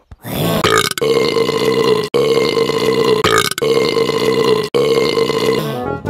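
A run of long, drawn-out burps dubbed in as a cartoon character's voice, about five back to back with short breaks between, each holding a steady pitch.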